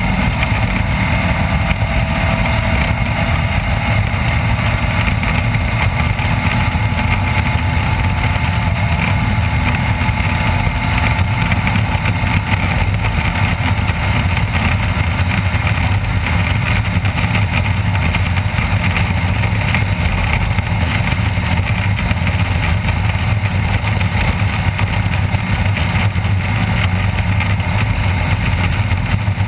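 Off-road race vehicle engine running steadily at a constant loud level, with no clear rises or drops.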